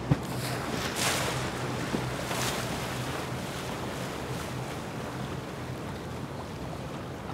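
Four Mercury Racing 450R outboards running at low speed with a steady low hum, under the wash of water along the hull and wind on the microphone. A sharp knock comes right at the start, and two louder swooshes come about one and two and a half seconds in.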